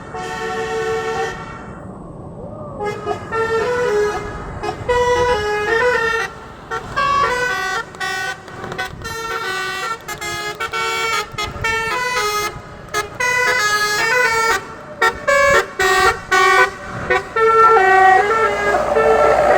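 Bus basuri musical air horn (telolet horn) playing a quick melody of short stepped notes. A brief phrase at the start, then a pause, then a long fast run of notes from about three seconds in.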